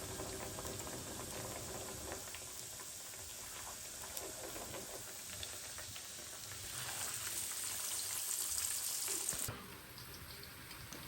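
Food frying in hot oil in a pan: a steady sizzle with small crackles. About seven seconds in the sizzle grows louder, then cuts off suddenly near the end.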